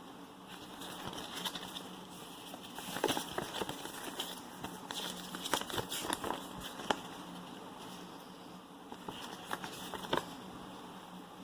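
Handling noise from unboxing a smartphone: crackly rustling with scattered sharp clicks and taps, busiest in the middle and again near the end, over a faint steady hum.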